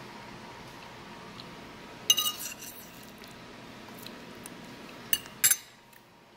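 Metal fork clinking against a ceramic plate: one ringing clink about two seconds in, then two sharper clinks near the end.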